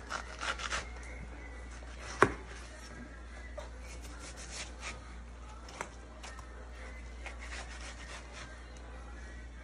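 Kitchen knife slicing through peeled watermelon flesh: a series of short, wet scraping strokes, with one sharp click about two seconds in.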